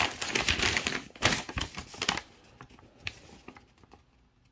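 Paper rustling and crinkling as a packing slip is unfolded and handled, busiest in the first two seconds and then thinning to a few faint ticks.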